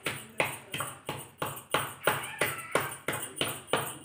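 Stone pestle pounding red chillies with cumin and tamarind in a heavy stone mortar: a steady, even rhythm of knocks, about three a second.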